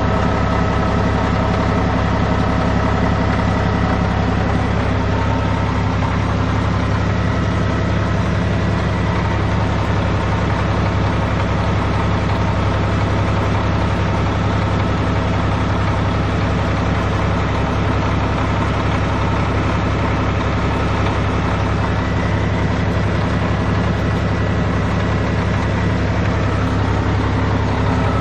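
Caterpillar D6C bulldozer's diesel engine running steadily at an unchanging speed.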